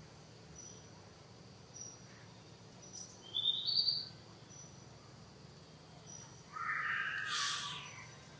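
Young macaque giving high-pitched squeals: a short rising squeak about three seconds in, then a longer, louder cry near the end, with faint brief chirps in the background.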